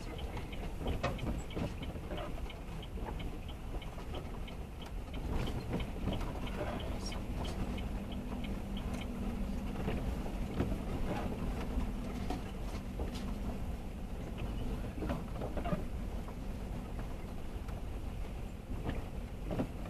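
Vehicle driving slowly on a gravel road, heard from inside the cab: a steady low rumble of engine and tyres, with frequent small clicks and rattles. A steady engine hum comes up for several seconds in the middle.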